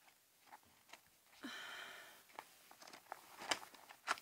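Faint handling sounds of paper and craft supplies being moved on a tabletop: soft rustles and a few light clicks and knocks, with a short rustle about halfway through and two sharper ticks near the end.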